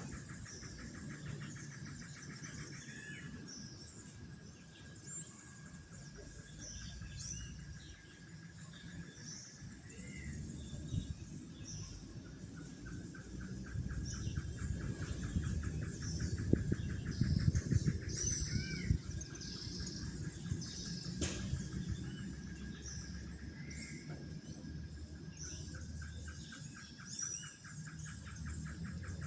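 Birds chirping and calling on and off over a continuous, evenly pulsed high trill, with low background noise that grows louder in the middle. A single sharp click sounds about two-thirds of the way through.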